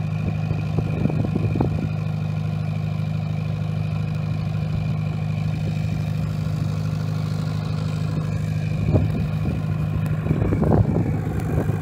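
An engine running steadily, a constant low drone, with a few light knocks about a second in and again near the end.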